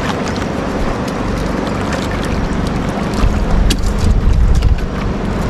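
Wind buffeting the microphone on a small boat on open water, gusting louder about three seconds in, with scattered small clicks and knocks.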